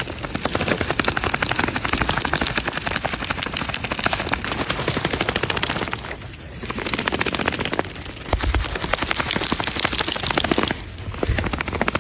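A dachshund reverse sneezing: long runs of rapid rattling snorts, broken by short pauses about halfway through and near the end.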